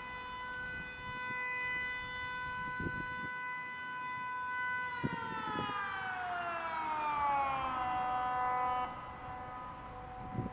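Elektro-Arola Teho-Ulvo D1800 civil-defence siren sounding its monthly test, a steady tone. About halfway through it winds down, its pitch falling for about three seconds before levelling off lower and fading near the end.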